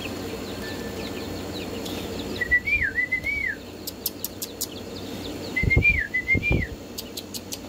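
A person whistling a short wavy tune twice, each phrase about a second long with the pitch rising and falling, and a few short clicks in between.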